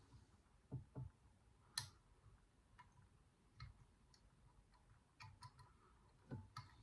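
Faint, irregular small metallic clicks and taps from a lever lock pick and tension wrench working the levers of a 4-lever drawer lock. The sharpest click comes about two seconds in, and a cluster of clicks comes near the end.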